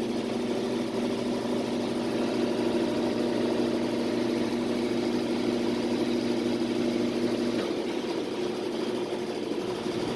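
Washing machine in its spin cycle: a steady motor and drum hum with a few held tones, the lowest of which drops out about three-quarters of the way through.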